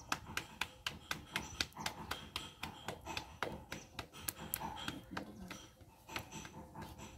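Hands patting a ball of bajra (pearl millet) dough flat between the palms to shape a roti by hand: a run of quick slapping pats, about three or four a second.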